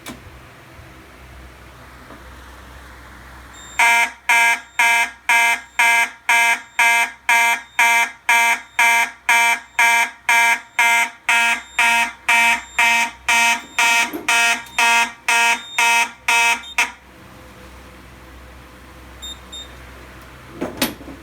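Simplex 2901-9838 fire alarm horn sounding in march-time coding, about two buzzing blasts a second. It is set off by a smoke detector sprayed into alarm. It starts about four seconds in and cuts off some four seconds before the end.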